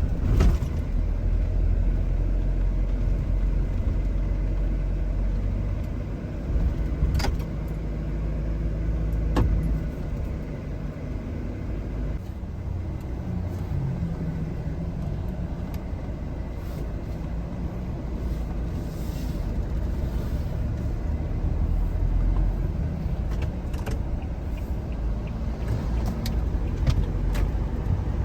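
A vehicle on the move: a steady low rumble of engine and road noise, with a couple of sharp clicks about seven and nine seconds in.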